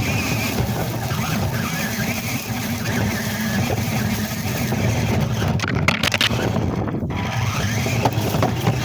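Big RC truck driving, its motor whine rising and falling over a steady low rumble.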